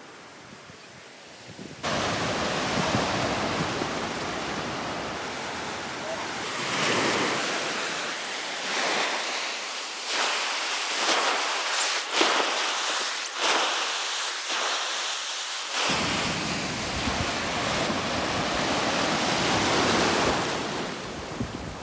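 Sea waves breaking and washing up the shore in repeated surges, quieter at first and much louder from about two seconds in.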